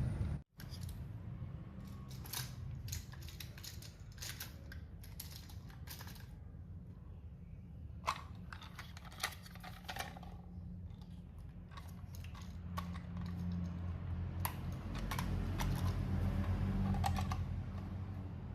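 Model train running on track: irregular small clicks of wheels over rail joints over a low, steady motor hum that swells and fades toward the end.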